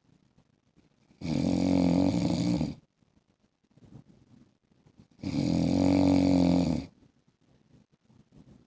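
A man snoring: two long, pitched snores, each about a second and a half, roughly four seconds apart, with near-quiet gaps between.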